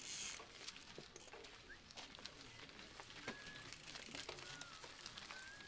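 Gravel bikes rolling past over cobblestones: a brief rush of tyre noise as one passes close at the start, then faint rolling noise with scattered small clicks as more riders go by.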